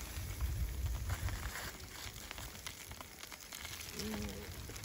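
Aluminium-foil food packets crinkling and metal tongs clicking as the packets are moved and stacked on a charcoal grill, a busy run of small crackles and ticks.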